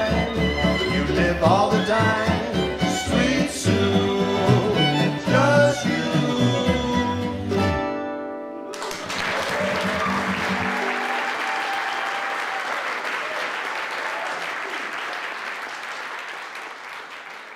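A jug band of guitar, mandolin, dobro, fiddle and jug plays the last bars of a swing tune, with two voices singing, and ends about eight seconds in on a held chord that rings out. Audience applause breaks in over the final chord, runs on steadily and fades near the end.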